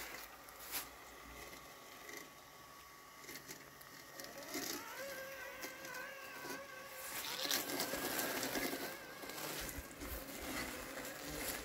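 Landxcape LX790 robotic lawn mower running through wet weeds, its electric motors giving a steady whine that rises in pitch about five seconds in, with scattered light clicks.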